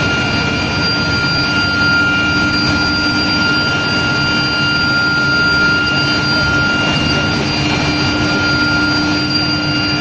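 Induction heat-treatment line for steel bars running: a loud, steady industrial roar with a constant high-pitched whine and a lower hum held throughout.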